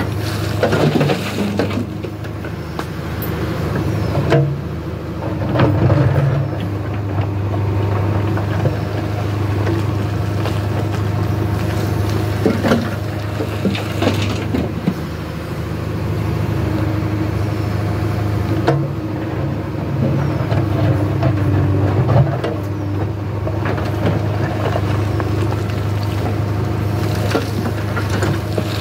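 JCB 3DX backhoe loader's diesel engine running steadily under hydraulic load, swelling louder at intervals as the arm digs, swings and dumps. Scattered knocks and rattles of soil and stones dropping into a steel tractor trolley.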